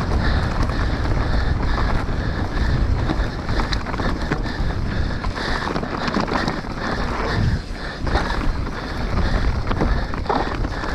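Mountain bike ridden fast down an enduro trail: wind buffeting the microphone over the tyres' rumble on dirt, with frequent quick rattles and clicks from the bike.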